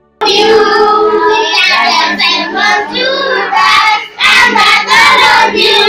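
A group of schoolchildren singing together, loud, cutting in abruptly just after the start, with a short break about four seconds in.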